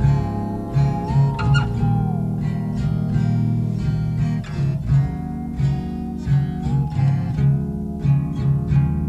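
Live rock band playing loud: a repeating electric bass riff driving under electric guitar and drums, recorded from the crowd.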